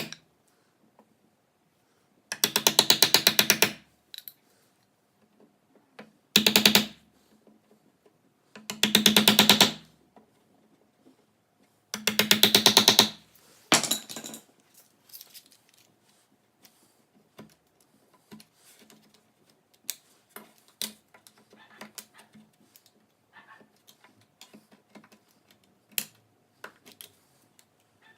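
Power tool run in four short bursts, each a rapid, even hammering, typical of a cordless impact driver driving screws. Scattered light clicks and knocks from handling hardware follow.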